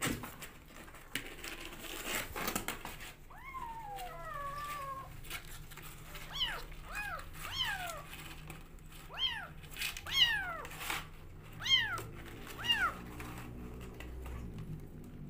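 Hungry kittens meowing at bottle-feeding time: one long falling meow about four seconds in, then a run of about seven short, high, falling meows. Scratchy clicks and rustles come before the meows.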